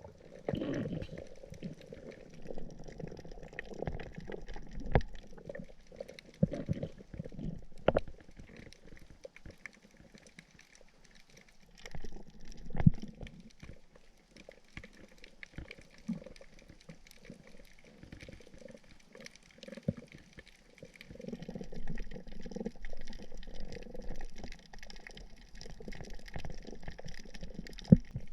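Underwater sound from a diving camera: muffled water movement and bubbling, with scattered sharp clicks and knocks.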